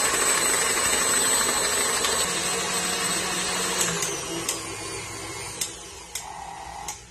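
KitchenAid Artisan stand mixer running flat out at speed 10, its beater whipping cake batter in the steel bowl, a steady motor noise with a thin high whine. About four seconds in this gives way to a quieter hum broken by several sharp clicks as the mixer is handled.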